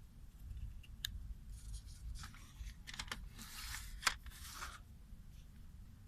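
A CD package being unwrapped by hand: plastic wrapping crinkling and tearing in two stretches, with a few sharp clicks from the case being handled.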